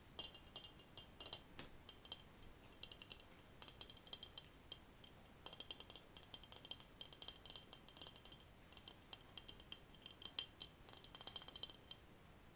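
Fingers tapping a brown glass vase: light, quick taps in clusters, each with a high glassy ring; they stop about a second before the end.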